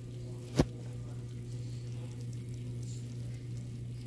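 Oven door shut with a single sharp clunk about half a second in, over a steady low hum.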